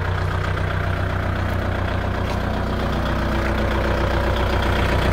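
Tractor engine idling steadily, getting a little louder toward the end.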